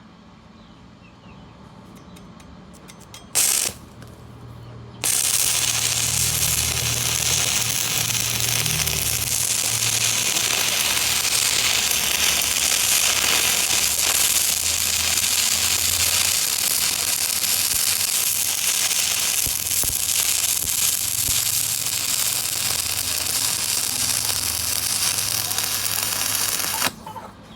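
Stick (arc) welding: the electrode's arc strikes briefly about three and a half seconds in, then strikes again and burns with a steady crackling hiss for about twenty seconds as a bead is run, breaking off abruptly near the end.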